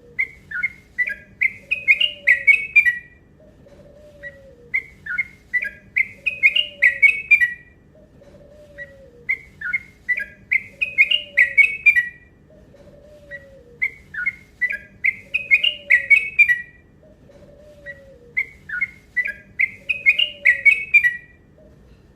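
Yellow-vented bulbul (trucuk) singing: five repeated phrases of quick, bubbly whistled notes, each phrase building louder toward its end and repeating about every four and a half seconds. A lower falling note repeats steadily underneath about every second and a half.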